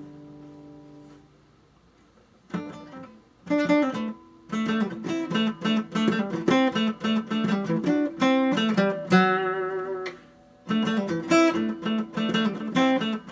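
1980 Hofner six-string acoustic guitar strummed: a chord rings out and fades, then after a short pause a run of strummed chords starts about two and a half seconds in, breaking off briefly twice.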